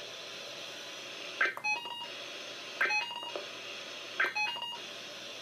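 Three short bursts of warbling SAME digital data tones, about a second and a half apart, heard over weather radio with a steady faint hiss between them. This is the end-of-message code that closes a Specific Area Message Encoding weather alert.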